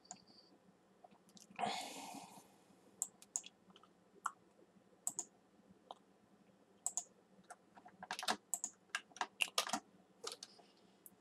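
Faint computer keyboard and mouse clicks: a few scattered clicks, then a quick run of keystrokes about eight seconds in as an IP address is typed into a browser's address bar. A brief rustle sounds near two seconds in.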